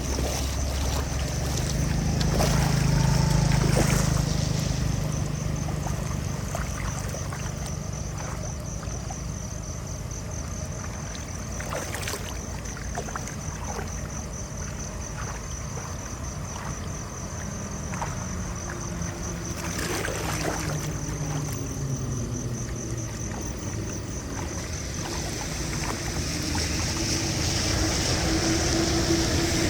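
Floodwater rushing steadily, with a low rumble that swells and fades twice, like vehicles passing, and a steady high pulsing tone over it.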